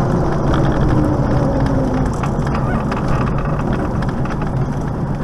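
Velocity light aircraft's engine and propeller running low, heard inside the cockpit as the plane rolls along the runway: a steady drone that slowly gets quieter, with a faint tone falling in pitch over the first two seconds.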